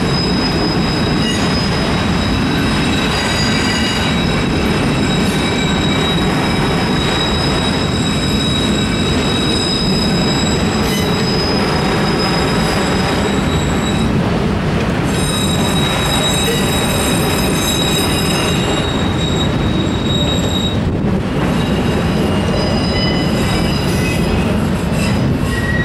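Autorack freight cars rolling past with a steady heavy rumble of wheels on rail. High-pitched wheel squeal comes and goes over it, dropping out briefly twice, as the cars take the east-to-north turn.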